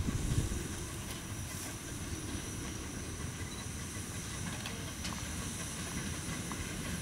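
Narrow-gauge steam locomotive working slowly with a short freight train: a few strong exhaust chuffs in the first half-second, then a steady hiss of steam over a low rumble of the engine and wagons.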